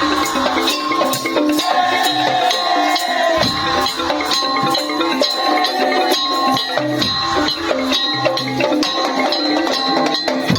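Madurese tong-tong-style ensemble music: dense, fast percussion of wooden and metal beaters with shakers, under a held melodic line.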